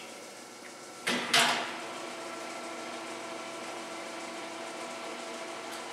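Hobart M802 80-quart planetary mixer: two sharp clunks of the speed-shift lever about a second in, then the mixer runs steadily in first speed with an even motor and gear hum.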